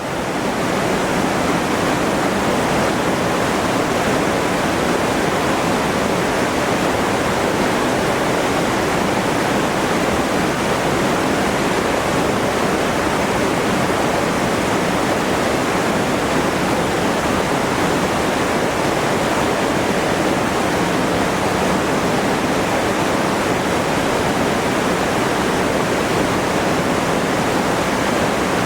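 Steady, unbroken rush of flowing or falling water, even throughout with no surges.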